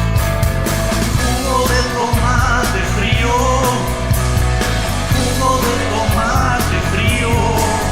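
Rock band playing from a rehearsal recording, a dense, loud mix with a wavering melodic line over a steady low end.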